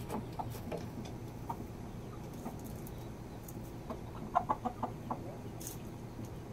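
Red junglefowl clucking: scattered single clucks, then a quick run of about six louder clucks a little past four seconds in.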